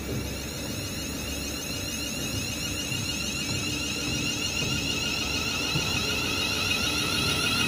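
Class 350 Desiro electric multiple unit accelerating away from a platform. Its traction motors give an electronic whine that rises steadily in pitch over the low rumble of the wheels on the rails, growing louder.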